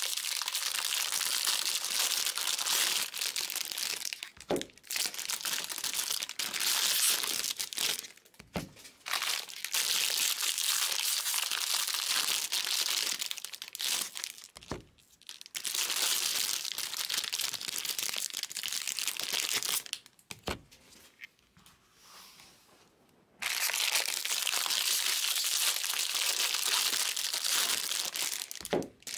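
Foil trading-card pack wrappers crinkling and tearing as packs are ripped open and cards pulled out, in long stretches broken by short pauses. About five soft knocks come in between, as cards are tapped or set down on the table.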